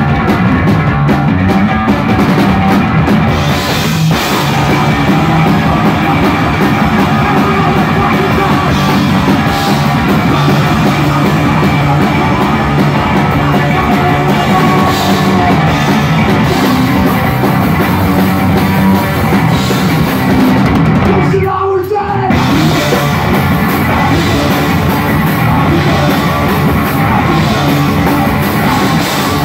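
Loud live punk rock from a bass-and-drums duo: driving electric bass guitar and drum kit with a sung vocal. The music drops out for a moment about three-quarters of the way through.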